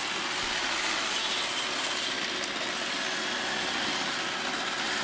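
iRobot Roomba 786p robot vacuum running, a steady even whirr from its vacuum motor.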